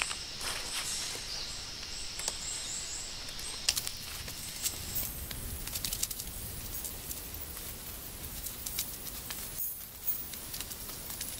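Nylon tent fabric rustling and plastic pole clips clicking as the inner tent of an MSR Storm King is unclipped from its poles, in a run of small irregular clicks and rustles.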